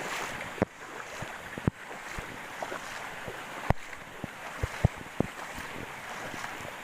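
Steady rush of a flowing upland river, with scattered sharp clicks and knocks throughout.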